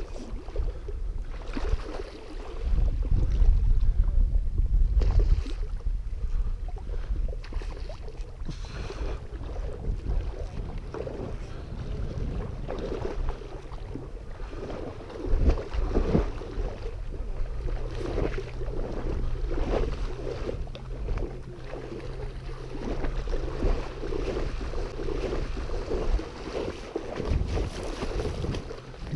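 Wind buffeting the microphone over shoreline water noise, gusting hardest a few seconds in, with a steady low motor hum about halfway through that stops near the end.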